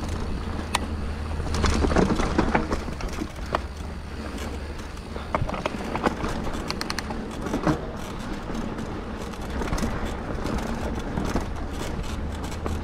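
2021 Scott Genius 950 full-suspension mountain bike ridden along a dirt trail: a steady low rumble of tyres rolling and air on the camera, with frequent clicks and rattles from the chain and bike over bumps. The clicks are thickest about two seconds in and again around six to seven seconds.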